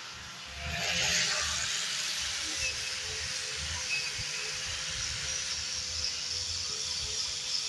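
Angle grinder with a wire brush scouring old table wood: a steady motor tone under a rough, hissing scrape that swells about a second in.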